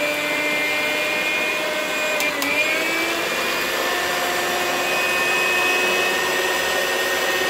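Zelmer electric stand mixer running steadily with its beaters whipping egg whites, which are still liquid and just starting to froth. The motor whine dips briefly in pitch with a click or two about two seconds in, then holds steady.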